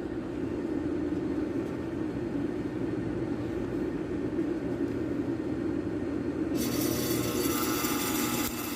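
Hard-starting air-conditioner compressor being started with an added starting capacitor, giving a steady low hum. About six and a half seconds in, a hissing buzz with thin high tones joins and stops near the end.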